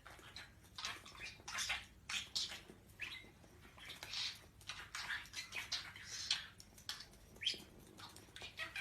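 Lovebirds chirping and chattering: a steady run of short, high calls, two or three a second.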